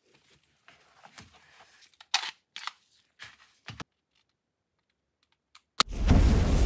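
Hands handling a plastic pistol case and a pistol, with several sharp clicks and knocks. Near the end a single gunshot cracks, followed by a loud, long, deep rumbling boom.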